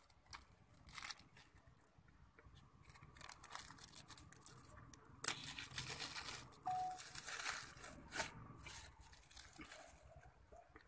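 Shiny gift-wrapping paper being torn and crumpled as a present is unwrapped, in faint irregular rustles with a few sharp crackles, busiest in the middle of the stretch.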